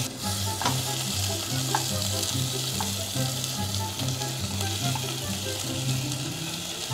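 Onion rings sizzling steadily as they fry in butter in a pan, with a few light clicks as chopsticks turn them.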